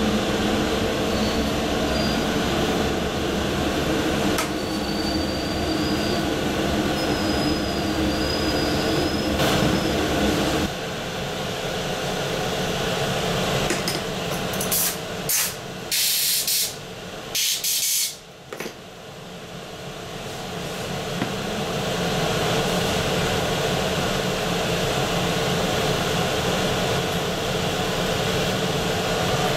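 Steady mechanical running noise of pressure-casting machinery, with a hum. The noise drops about a third of the way in, a few short loud hisses come around the middle, and then the running noise builds back up and holds steady.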